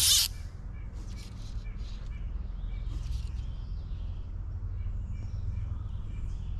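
Fly line swishing through the air on a light fly rod during casting: one loud whoosh at the start, then a few fainter swishes over the next couple of seconds, over a steady low rumble of breeze on the microphone.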